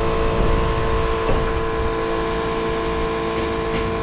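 Steady machine hum with a constant drone.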